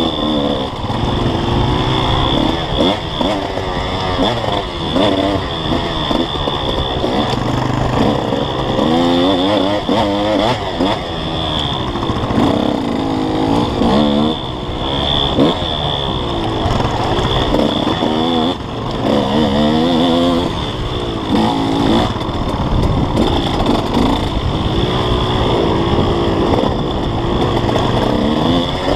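KTM 150 SX two-stroke single-cylinder dirt-bike engine under way on a trail, revving up and down over and over with the throttle, its pitch rising and falling every second or two.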